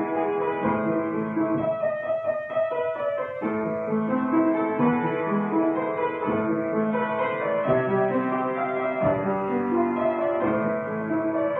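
Upright piano being played: a continuous flowing passage of overlapping notes, busier for a moment about two seconds in.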